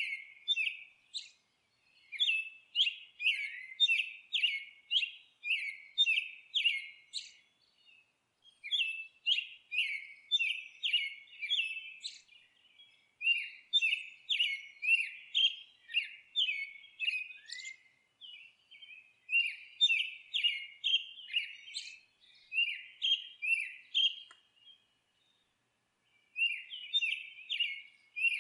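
A small songbird chirping: quick runs of sharp, down-slurred chirps, about three a second, broken by short pauses and one longer pause near the end.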